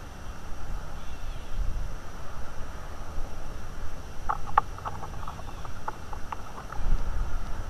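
Wind rumbling on an outdoor microphone, with a bird's quick run of short chirps a little past halfway through.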